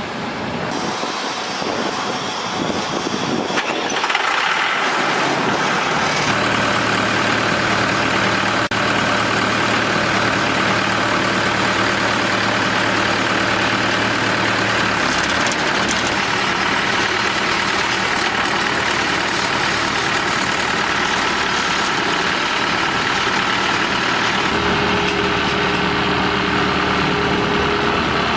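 A drilling rig's engine running steadily. It picks up over the first few seconds, then settles into a steady drone whose note changes about halfway through and again near the end.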